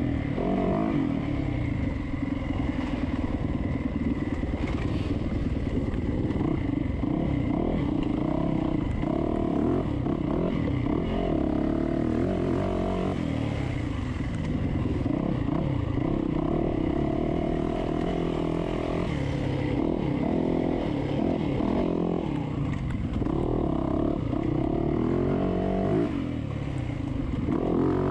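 Dirt bike engine running under load, its pitch rising and falling as the throttle is worked on and off.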